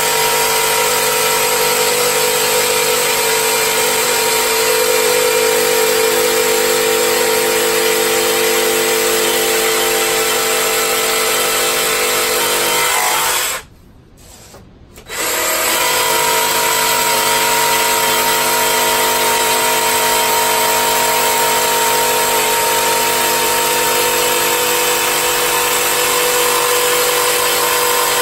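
Cordless jigsaw running steadily as it cuts along a PVC pipe, with a steady whine. It stops for about two seconds midway, then starts up and cuts on.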